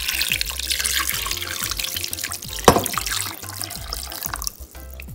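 Chicken broth pouring in a steady stream into a crock pot, splashing onto chicken and cream of chicken soup and into the pooling broth, with one brief sharp sound partway through. The pour stops about four seconds in. Background music plays underneath.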